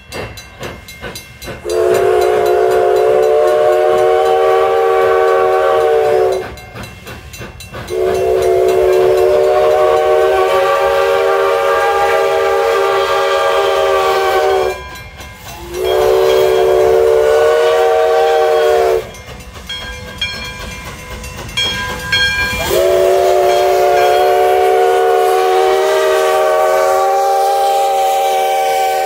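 Nevada Northern No. 93, a 2-8-0 steam locomotive, sounding its steam whistle in four blasts (long, long, short, long), the standard signal for a road crossing. Between the blasts, the steam exhaust chuffs and steam hisses as the locomotive draws near and passes.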